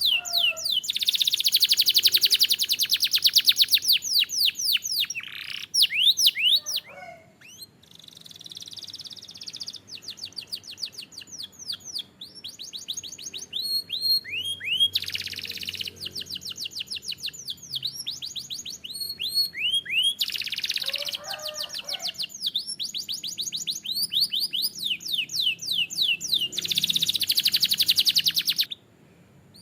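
Domestic canary singing: fast high-pitched trills of rapidly repeated falling notes, in phrases with short breaks, cutting off abruptly just before the end.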